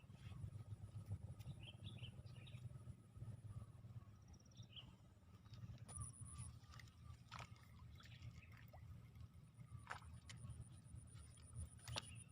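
Quiet outdoor ambience: a low steady rumble, a few faint bird chirps and a thin high insect whine that comes back about three quarters of the way through, with a few soft clicks.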